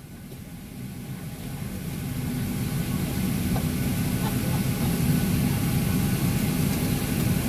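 Boeing 737-800 cabin noise: a low rumble with hiss that swells over the first three seconds and then holds steady.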